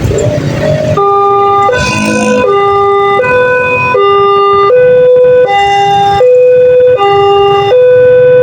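Railway level-crossing warning siren, an electronic Multec-type alarm, starting about a second in: two tones alternate in a fast hi-lo pattern, each held for about three-quarters of a second, very loud. It signals that a train is approaching and the crossing is closing. Before it starts there is only road traffic noise.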